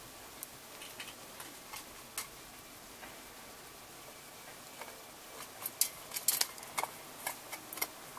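Golden hamster crunching through a flat horn hissing cockroach's hard shell: scattered sharp crisp clicks that come thicker and louder over the last few seconds.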